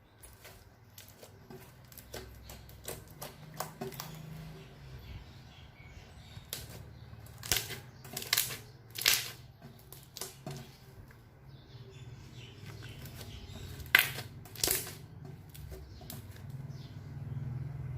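Hands working slime and balloons: an irregular string of small sticky clicks and crackles, with a handful of louder sharp snaps, twice in quick succession mid-way and again near the end.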